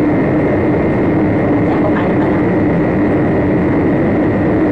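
Steady, loud machine hum with a constant low tone and a fainter high tone, unchanging throughout.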